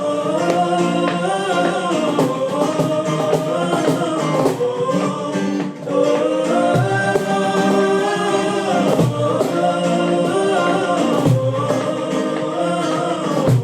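Music: the opening of a song, a melodic vocal line over accompaniment, with regular percussion strikes that are likely the cajon being played along.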